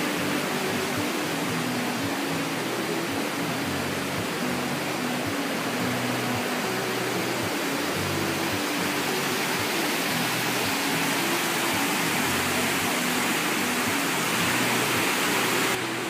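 Steady rush of a fast mountain river over rocks, with soft background music playing a slow melody. The rushing swells toward the end and drops off suddenly just before it closes.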